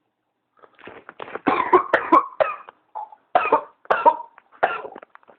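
A person with whooping cough (pertussis) coughing in rapid runs, cough after cough with only short gaps: the paroxysmal coughing fit typical of pertussis. It starts faint and gets loud after about a second and a half.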